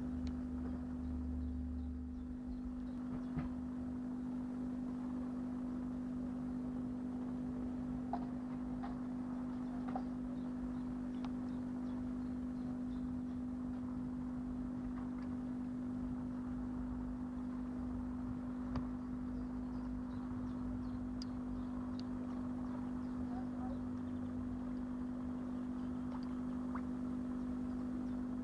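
Steady machine-like hum with one strong low tone, unchanging throughout, and a few faint clicks here and there.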